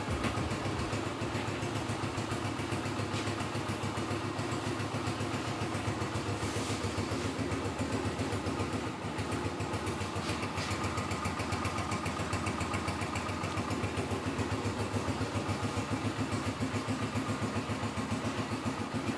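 Honda CG 125's single-cylinder four-stroke engine idling steadily, with an even, regular exhaust pulse.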